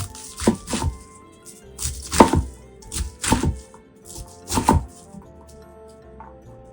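Kitchen knife chopping cabbage into chunks on a cutting board: four quick runs of two or three cuts each, with background music underneath.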